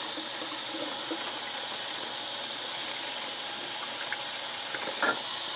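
Hot water running from a sink faucet into an open plastic freezer bag: a steady splashing hiss, with one short, sharper sound about five seconds in.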